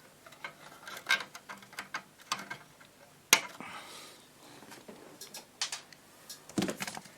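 Small hand tools working on a valve radio chassis: a run of short metallic clicks and taps, with one sharp click about three seconds in, as an old component is cut out.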